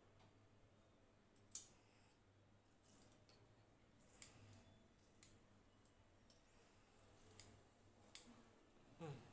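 Hand-held metal lemon squeezer clicking and clacking as its hinged cups are pressed shut and opened on a lemon half: a handful of sharp separate clicks a second or so apart, with a short falling squeak near the end.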